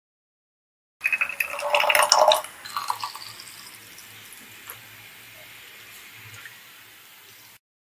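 A metal spoon clinking and scraping against glass milk bottles, starting about a second in and lasting about a second and a half. Then cream is poured into a glass bottle: a faint, steady liquid trickle that cuts off near the end.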